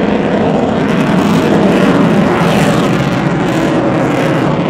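Eurofighter Typhoon's twin jet engines heard from the ground as it displays overhead: a loud, steady jet rumble with sweeping whooshes, loudest about two seconds in.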